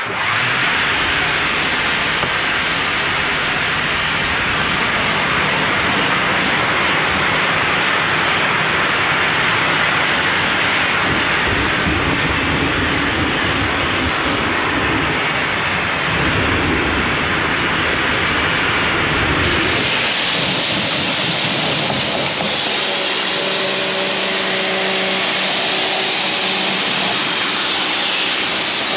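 Water spraying hard onto a vehicle, a loud steady hiss. About twenty seconds in the sound shifts, and a steady motor hum joins the spray.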